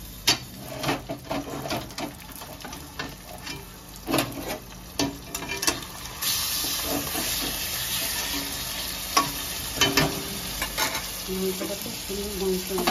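Pieces of goat meat frying in hot oil with fried onions in an aluminium kadai, stirred with a spatula that scrapes and knocks against the pan. The sizzling grows louder and steadier about halfway through.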